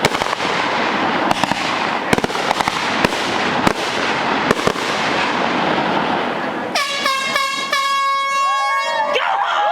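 Fireworks crackling with many sharp pops for about seven seconds; then several loud sustained pitched tones start together and hold to the end.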